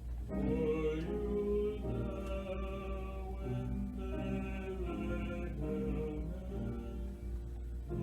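Church choir singing held notes over instrumental accompaniment.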